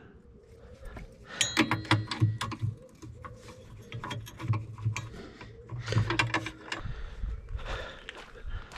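Metal hand tools clinking and rattling against one another, in two clusters of sharp clicks with brief metallic ringing, as tools are handled and sorted in a metal toolbox.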